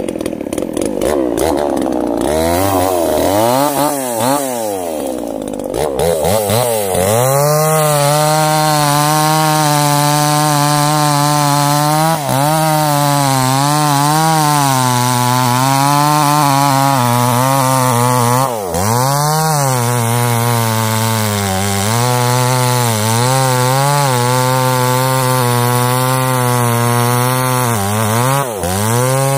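Two-stroke chainsaw revved up and down a few times, then held at full throttle cutting into the base of a sengon tree trunk. The engine note sags and recovers a few times under the load of the cut and drops away as the throttle is let off at the end.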